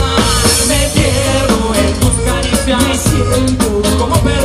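Live rock band playing loudly with a steady drum beat, and a male singer's voice over the band.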